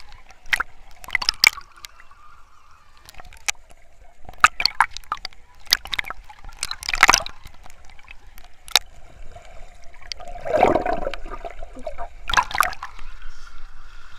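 Sea waves splashing and sloshing close by, in irregular sharp splashes, with a longer surging wash about ten seconds in and a last strong splash a little after.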